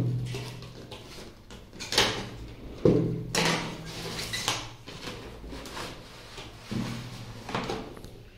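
Cardboard headphone box being handled on a wooden table: a few sharp knocks and sliding scrapes as the inner box is slid out of its sleeve and opened. The loudest knocks come at the start and about two and three seconds in.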